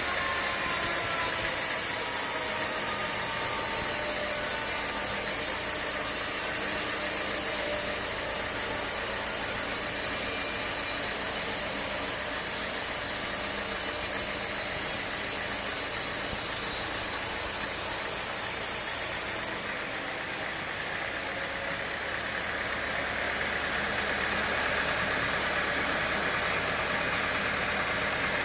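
Sawmill machinery running steadily, an engine-like drone with hiss and a few faint tones that fall slowly in the first seconds. The sound changes abruptly about two-thirds of the way through, to a duller drone with a low hum.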